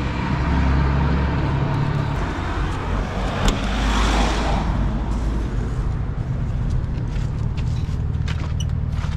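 A vehicle engine running with a steady low hum, and a car driving past in the street, its noise swelling and fading between about three and a half and five seconds in. A single sharp click comes just as the car starts to pass.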